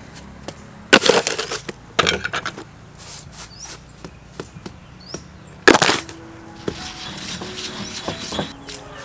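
Stone pestle pounding in a stone mortar, pounding chilies with salt and sugar. The strokes come in short bursts of rapid knocks about a second in, about two seconds in and near six seconds in, with lighter taps between.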